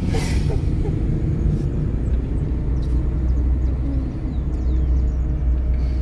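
Fiat car's engine and road noise heard from inside the cabin while driving: a steady low rumble.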